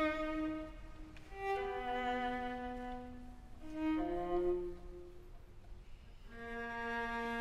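String quartet (two violins, viola and cello) playing quietly: long held bowed notes and chords that swell and fade, growing louder near the end.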